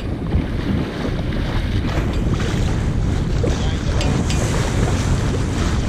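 Wind buffeting the microphone over the steady rush and splash of water along the hull of a sailing yacht under way.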